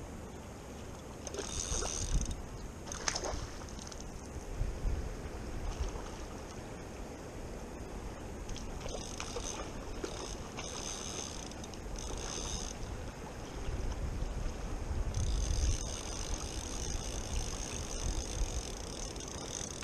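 Fast-flowing river running over stones in a steady rush, with wind rumbling on the microphone in gusts.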